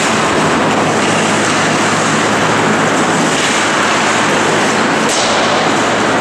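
Steady loud noise of an indoor ice rink during a hockey game, over a constant low hum, with a faint click about five seconds in.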